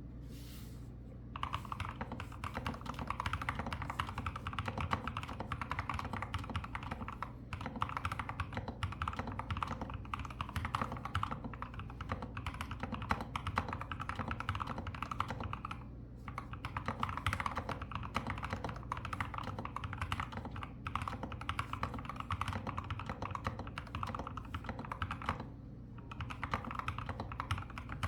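Continuous fast typing on a wooden keyboard: a dense run of key clicks starting about a second in, with a few short pauses now and then.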